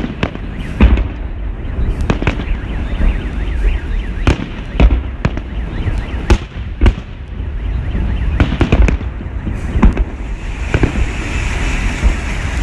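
Fireworks display: a dozen or so sharp bangs of shells bursting at irregular intervals over a continuous low rumble, with a hissing crackle building near the end.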